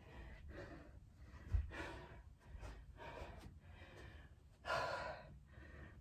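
A woman breathing hard, with quick, heavy breaths and gasps as she recovers from a high-intensity exercise. The longest breath comes just before five seconds in, and a short low thump sounds about one and a half seconds in.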